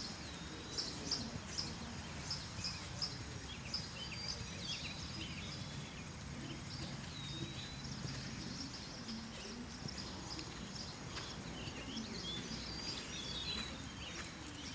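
Small birds chirping and singing, many short high calls and little gliding notes, over a steady low background rumble outdoors.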